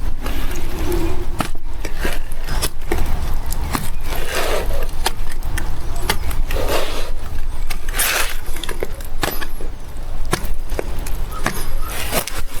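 Irregular clicks and knocks with a few short scraping sounds as a PVC pipe and connector are handled and worked against each other.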